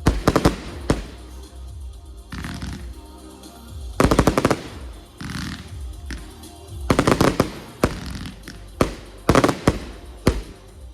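Fireworks going off in quick strings of sharp bangs, five clusters in all, over music playing throughout.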